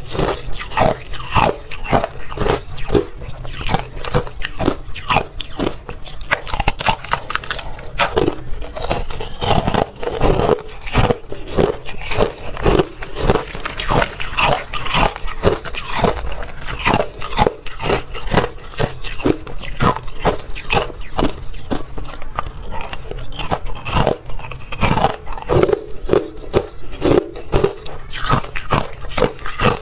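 Hard ice bitten and chewed close to a clip-on microphone: dense, continuous crunching, several crunches a second.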